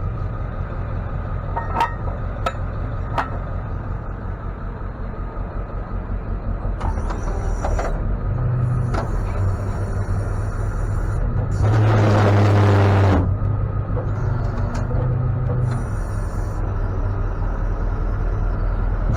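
Idling tow truck engine with a recurring mechanical noise from the wrecker's equipment, high squeaks on and off and one loud rasping groan for about a second and a half in the middle. Grease and spray have not cured the noise, and its cause is unknown.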